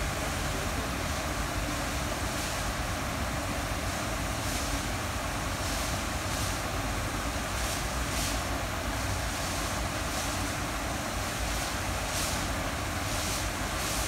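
Small rock waterfall cascading in steps into a pond: a steady rush of falling and splashing water, with brief hissy surges every second or so.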